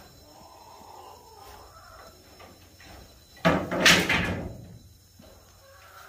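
A loud clattering bang about three and a half seconds in, dying away over about a second.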